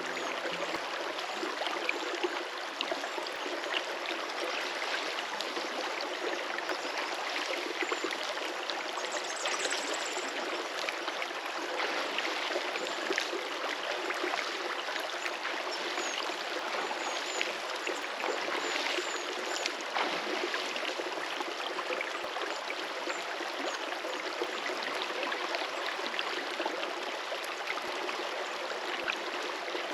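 River water flowing in a steady rush, with a few faint high chirps near the middle.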